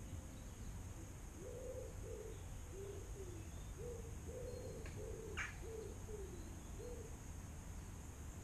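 A pigeon cooing in a run of about ten short, low notes, faint against a steady low background, with a sharp click about five seconds in.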